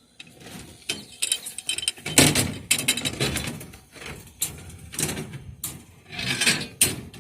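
Irregular clattering, scraping and rattling clicks as steel reinforcement rods and centring material are handled on the roof, with a louder spell about two seconds in and another near the end.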